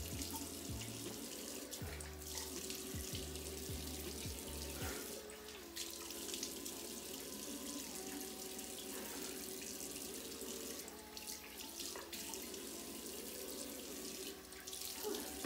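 Bathroom sink tap running steadily into the basin while water is used to wet a face.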